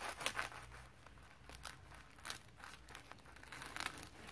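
A knife slicing through a nori-wrapped sushi roll, the dried seaweed sheet crackling and tearing in several short, faint strokes.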